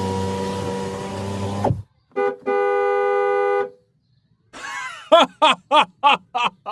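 Electronic horn and siren sound effects of a toy vehicle. First a horn blast mixed with hiss, then a short beep and a held horn tone, then a quick run of short falling-pitch whoops, about three a second.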